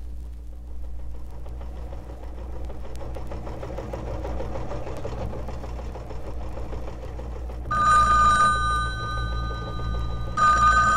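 A telephone bell rings twice, about two and a half seconds apart, the first ring about eight seconds in and the second near the end, each leaving a fading ring of several steady tones. Under it runs a steady hiss and low hum.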